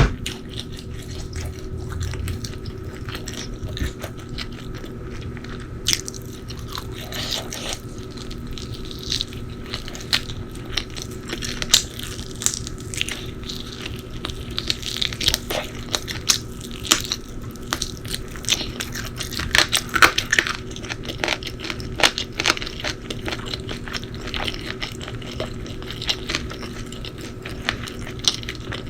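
Close-miked eating: crunchy bites and chewing, with many short crisp crackles coming irregularly throughout.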